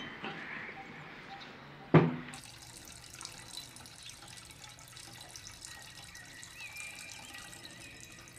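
A glass jar knocks once on a hard floor about two seconds in. Then the water in the jar keeps up a fine fizzing crackle of small bubbles.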